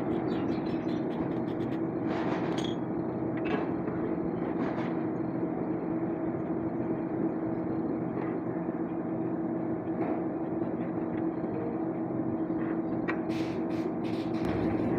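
A steady mechanical hum, as from a running engine or machine, with a few sharp clinks of hand tools on metal about two, three and a half and five seconds in, and several more near the end.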